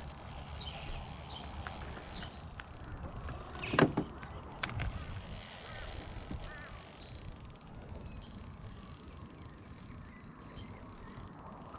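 Quiet handling sounds while a hooked fish is fought on a spinning rod from a small aluminium boat, with a low uneven rumble of wind on the microphone and a few faint high bird chirps. One sharp, loud knock comes about four seconds in.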